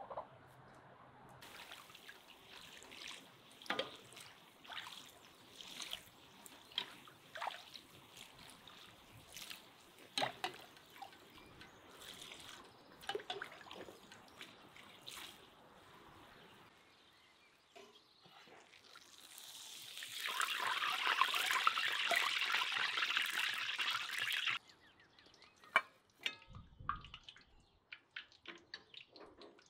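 Cheburek deep-frying in hot oil in a cast-iron cauldron, with oil ladled over the pastry: scattered crackles and sharp pops, then a loud dense sizzle for about four seconds past the middle, then only scattered small pops.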